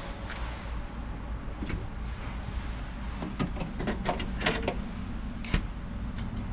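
A series of light clicks and knocks, as of something being handled, over a steady low background rumble.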